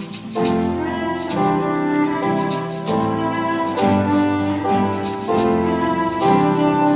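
Background music: gentle instrumental track with sustained chords that change about once a second over a light regular beat.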